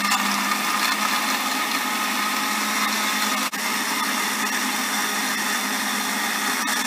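Electric countertop blender running at full speed, churning strawberries, milk and ice into a milkshake: a steady motor hum over loud whirring, with a momentary break about halfway through.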